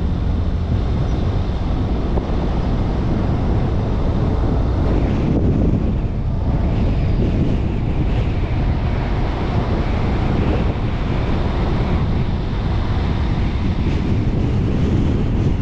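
Wind buffeting a camera's microphone on a moving vehicle, over steady road noise: a continuous low rumble with no distinct events.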